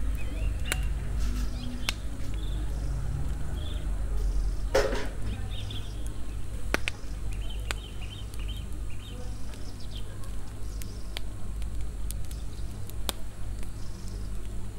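Scattered light clinks and a brief scrape of a spoon and pot as food is stirred on a portable gas burner, over a steady low rumble.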